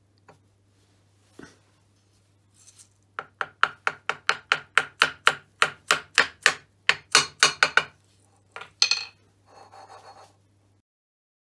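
Soft-faced mallet tapping a steel plug to seat it in a milling vice's base: a fast, even run of sharp taps, about five a second, starts about three seconds in and lasts about five seconds. Two more taps follow, then a brief soft rattle.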